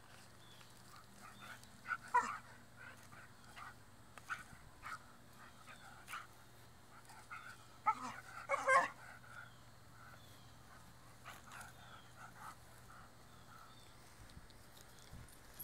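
A dog barking briefly, once about two seconds in and again in a short cluster near the middle.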